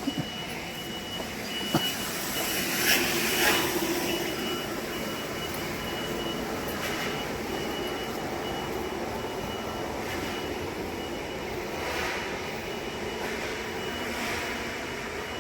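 Steady background noise of a large store, with a thin high tone and a few brief swishes and clatters.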